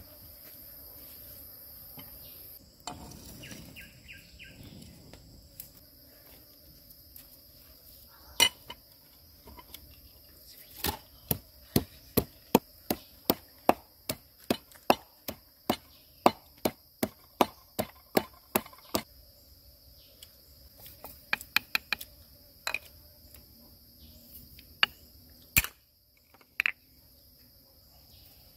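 Knife chopping on a wooden board: a run of sharp, regular strokes about two to three a second through the middle, with scattered lighter taps before and after. Insects buzz steadily underneath.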